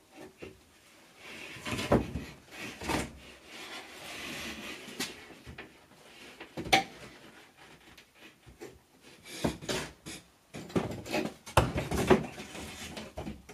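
A heavy sheet of 5/8-inch Type X drywall knocking, scraping and rubbing against wooden framing as it is tilted up toward the ceiling. Irregular sharp knocks and thumps come between stretches of scraping.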